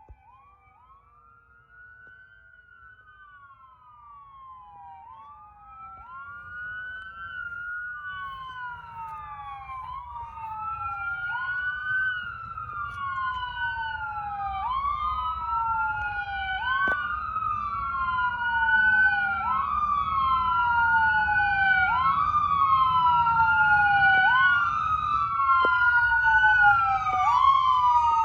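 Fire truck siren sweeping up and down in a repeating wail, each cycle rising quickly and falling more slowly, growing steadily louder as the truck approaches, with the truck's engine and road rumble underneath.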